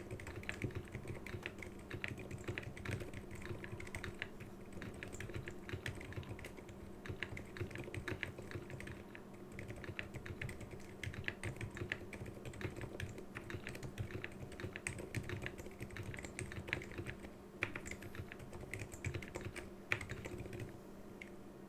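Continuous typing on a Keychron K6 keyboard with lubed and filmed Alpaca silent linear switches and stock keycaps, stopping shortly before the end. A computer case fan hums steadily underneath.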